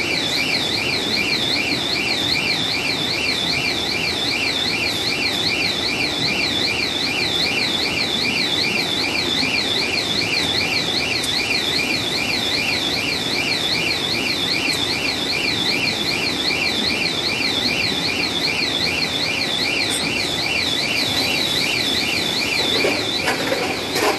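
Electronic warning alarm sounding without a break: two high tones warble rapidly up and down, over and over, over a steady machinery hum. The alarm cuts off near the end.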